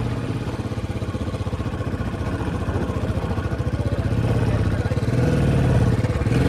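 Motorcycle engine running under way, with a steady, fast pulse of firing strokes. Its pitch climbs and dips in the last couple of seconds as the revs change.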